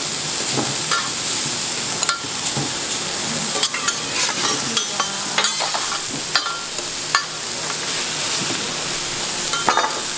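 Pork belly sizzling on a large iron griddle plate in a steady hiss, with scattered sharp clicks and taps.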